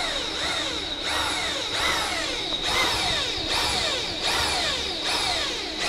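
Electric drill boring out seized metal pins, its whine dropping in pitch over and over as the bit loads up in the metal, with a steady high tone above it. It cuts off suddenly at the end.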